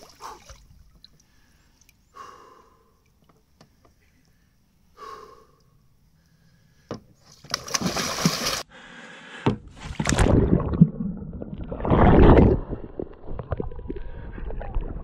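Sea kayak capsizing with a loud splash about seven and a half seconds in, after a mostly quiet start. Churning, sloshing water and paddle splashes follow close to the microphone, with a second loud splash about twelve seconds in.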